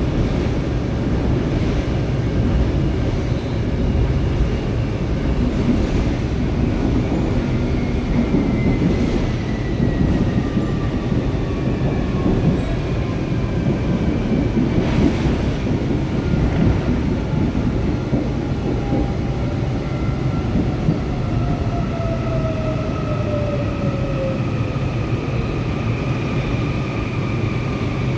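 Seoul Line 4 subway train with a Woojin IGBT VVVF inverter running with a steady rumble. Its motor whine falls slowly in pitch as the train slows, and a few wheel knocks over rail joints come through midway.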